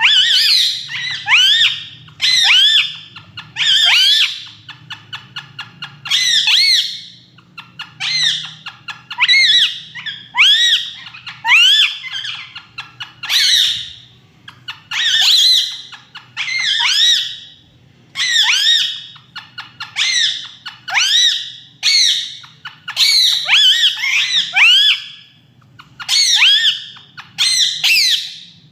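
Pet parrot squawking over and over, a burst of harsh rising-and-falling shrieks about every second or so, some bursts opening with a quick rattling chatter.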